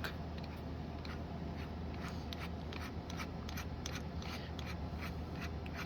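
Faint scattered clicks and light rustling from handling, over a low steady hum; no drill motor running.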